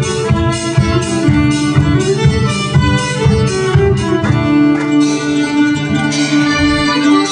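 Live folk dance band playing an instrumental tune on strings and squeezebox over a steady beat. The beat thins out about halfway through while a held note carries on.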